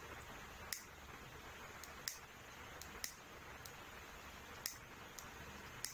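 A disposable lighter flicked over and over without lighting, a sharp click about every second with fainter clicks between: the lighter seems to have run out of fuel.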